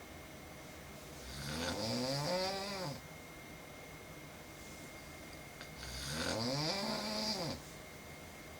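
A woman snoring in her sleep: two long snores about four seconds apart, each lasting about a second and a half, with a pitch that rises and then falls.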